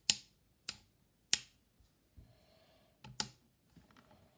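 Power switch on a subwoofer's back panel being flicked on and off: three sharp clicks about half a second apart, then another click about three seconds in.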